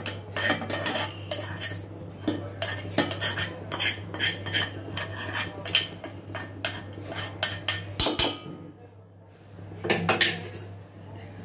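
Metal spoon scraping and tapping a small pan against the rim of a stainless steel mixer jar, a busy run of quick clinks and scrapes. It pauses about eight seconds in, then a short cluster of clinks follows near ten seconds.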